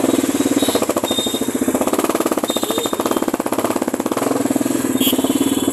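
Royal Enfield 350's single-cylinder engine running at low speed under way, its exhaust giving a rapid, even thump.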